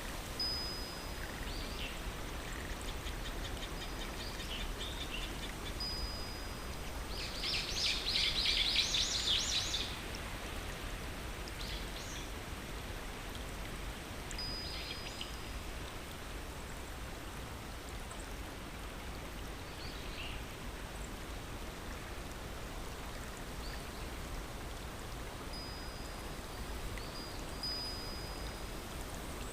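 Steady rush of flowing stream water with birds calling over it: thin, level whistles now and then, and a loud, bright chattering song from about seven to ten seconds in.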